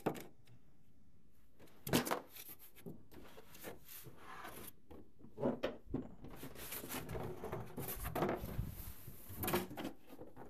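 Cardboard packing being handled and pulled off the plastic base of a 4moms Mamaroo baby rocker: irregular rubbing and scraping, broken by a few sharp knocks, the loudest about two seconds in.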